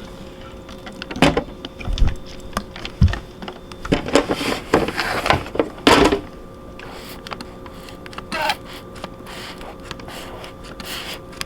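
Wiping and scrubbing a refrigerator shelf by hand, with scattered knocks and clatters as things are handled; the longest stretch of rubbing comes around the middle.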